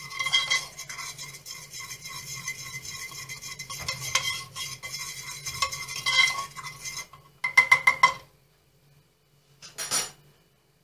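A metal fork stirring a thickening cornstarch-and-water mixture in a small metal saucepan, scraping and clinking against the pan. Near the end there is a quick run of sharp clinks, then the stirring stops.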